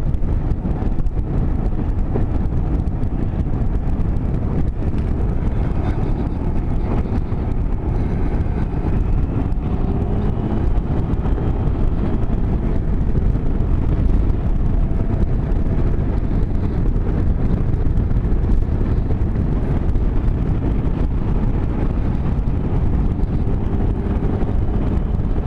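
Motorcycle engine running at road speed with wind rushing over the microphone, its note drifting up and down gently as the bike rides through curves.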